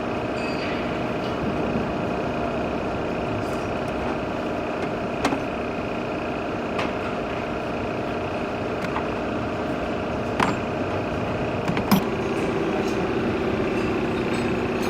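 An engine idling steadily, with a few sharp metallic clicks of tools; its lower hum grows stronger about twelve seconds in.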